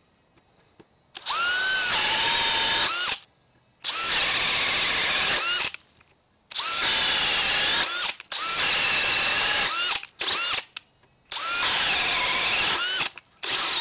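DeWalt DCD999 FlexVolt Advantage brushless hammer drill on high speed (mode 3) boring a 1-1/2-inch Speed Demon bit into treated lumber: about five runs of about two seconds each. Each run opens with a quick rising motor whine that drops in pitch as the bit bites into the wood.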